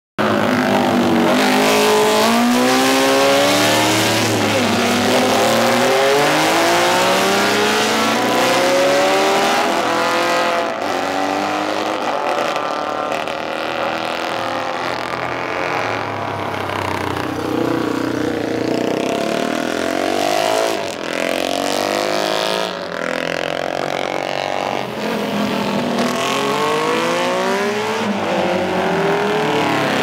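Vintage MV Agusta racing motorcycles revving hard as they accelerate past one after another, the engine note climbing and dropping again and again as the riders change up through the gears.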